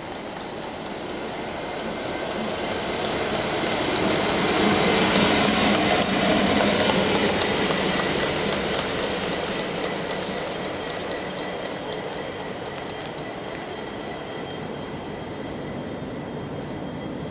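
Class 59 diesel locomotive running light engine, its EMD two-stroke V16 growing louder as it approaches and loudest about five to seven seconds in as it passes, then fading away. Wheels click over the rail joints as it goes by.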